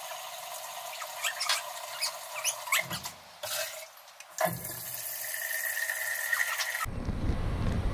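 Kitchen clatter: light clinks and taps of small utensils against a plate and metal bowls, then a steady rushing noise for a few seconds, changing suddenly to a louder, deeper noise near the end.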